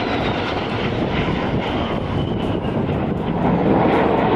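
Twin F404 turbofans of a CF-18 Hornet jet fighter at high power in a display pass, with afterburners lit. The loud, rumbling jet noise grows louder near the end.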